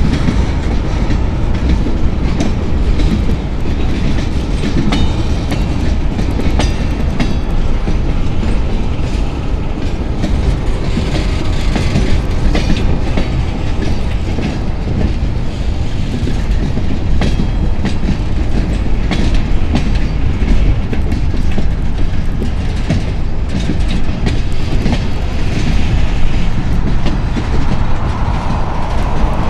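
Freight cars of a CSX mixed freight train rolling past, a steady heavy rumble with the steel wheels clicking irregularly on the rails.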